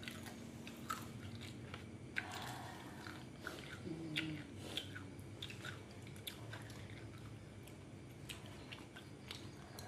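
Close-up eating sounds: chewing and crunching of food, with scattered small clicks and crackles as rice and tripe are eaten by hand.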